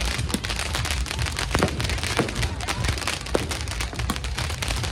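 Many fireworks and firecrackers going off at once: a dense, continuous crackle of sharp pops, with several louder bangs and a low rumble underneath.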